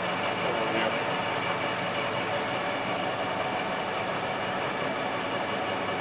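LeBlond Regal Servo Shift engine lathe running under power with the threading feed engaged: a steady mechanical hum of the headstock gearing and drive, with even low tones.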